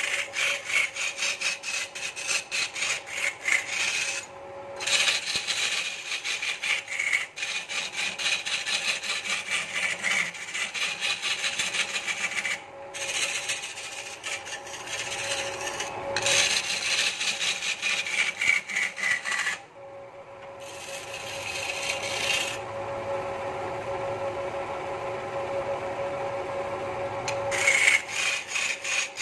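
Wood lathe spinning a large wooden stool blank while a hand-held turning tool cuts and scrapes the rotating wood, a rapid rasping over the motor's steady hum. The cutting breaks off briefly a few times as the tool is lifted, and it runs smoother for a few seconds near the end.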